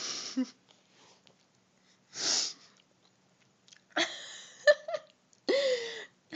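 A sick young woman coughing and wheezing, her coughs sounding almost like sneezes. A breathy burst comes at the start, a sharper one about two seconds in, and then several voiced, wheezy coughs and gasps in the last couple of seconds.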